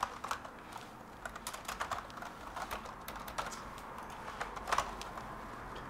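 Typing on a computer keyboard: a run of quick, uneven keystrokes that thins out and stops near the end.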